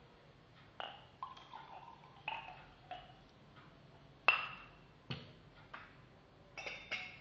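Hard drink containers being handled and set down: about ten light knocks and clinks, several ringing briefly, the loudest a ringing clink about four seconds in.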